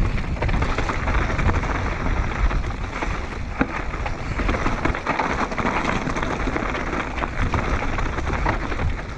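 Mountain bike descending a loose, rocky single track: tyres crunching over dirt and stones, with many small clicks of stones and the bike rattling, and wind rushing on the microphone.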